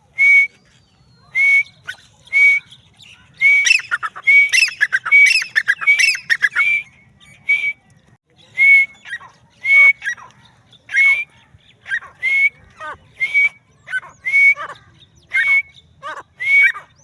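Francolin (teetar) calling: a string of short, high, loud notes about one a second, with a quick run of overlapping notes in the middle.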